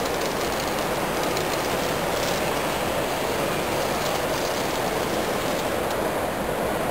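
Steady, even background noise of a busy exhibition hall, with no single sound standing out.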